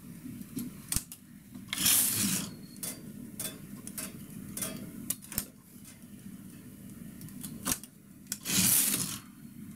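Knitting-machine carriage pushed across the needle bed twice, a brief rush of sliding noise under a second long about two seconds in and again near the end, each pass knitting one row. Between the passes, small clicks of a hand transfer tool hooking stitches onto the metal latch needles.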